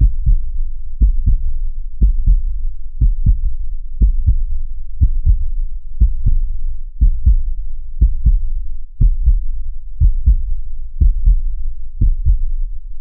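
Normal human heart sounds: a steady lub-dub, the first and second heart sounds, repeating about once a second with no extra sounds between the beats.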